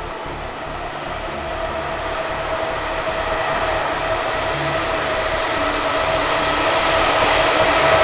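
Trenitalia E.464 electric locomotive approaching, a steady rushing noise with a high whine that grows slowly louder as it nears.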